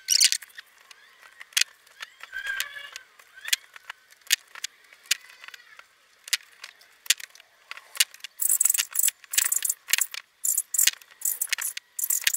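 Hand-stitching a leather shoe toe with an awl and thread, played sped up: a quick string of sharp clicks and scratchy rasps as the awl pierces the leather and the thread is drawn through, growing denser and hissier about eight seconds in.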